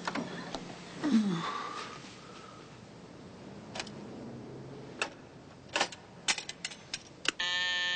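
A scatter of sharp clicks and taps from small objects being handled, coming quicker a few seconds in. Near the end comes a loud, harsh electronic buzz.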